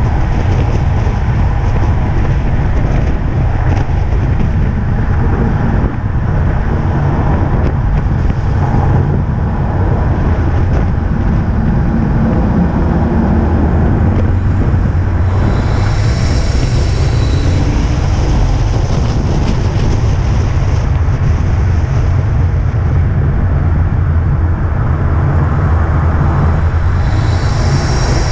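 Car engine running steadily under load at track speed, with tyre and road noise; a higher hiss comes in twice, around the middle and again near the end.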